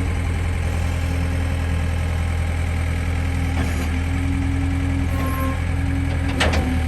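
John Deere 315 skid steer's diesel engine running steadily at idle, with a single sharp click or knock about six seconds in.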